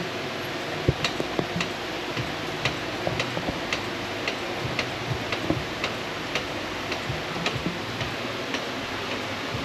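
Steady whooshing of shed fans, with light sharp ticks repeating slightly unevenly about two to three times a second over it.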